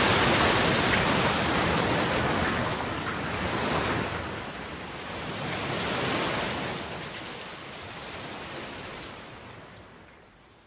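Steady hiss of rain, strongest in the first few seconds, easing and swelling once more, then fading away toward the end.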